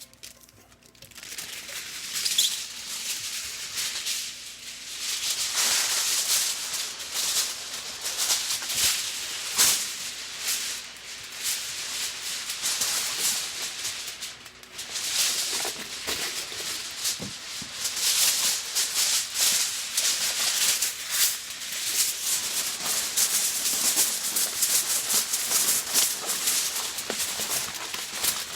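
Aluminium foil being crinkled and worked into grooves by hand, a continuous crackling rustle that starts about a second in.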